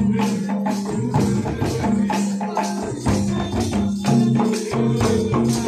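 Santali folk music for dance: drums beaten in a quick, even rhythm, about three strokes a second, over a low melody held in long notes.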